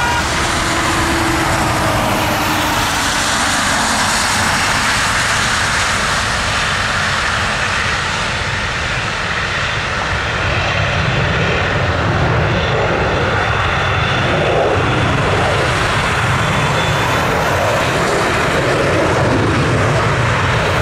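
Airbus A320's IAE V2500 turbofan engines at takeoff power as the jet lifts off and climbs away: a steady, loud jet noise, with a faint high whine through the middle.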